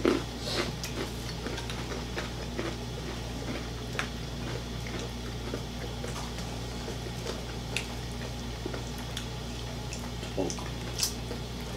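Eating by hand: scattered small clicks, chewing and squishy sounds of fried chicken and soft sides picked from plates with fingers, over a steady low hum.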